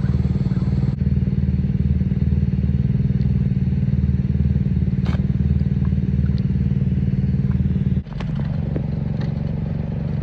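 A small engine running steadily with an even low pulsing; about eight seconds in it cuts to a slightly higher, quieter engine note. A few faint clicks and knocks sound over it.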